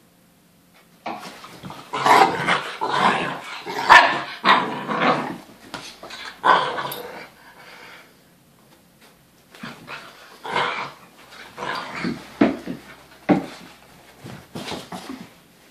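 A whippet and a saluki puppy play-fighting, with play barks and growls in bursts. The sounds come thick and fast from about a second in, pause for a couple of seconds, then return in shorter sharp bursts.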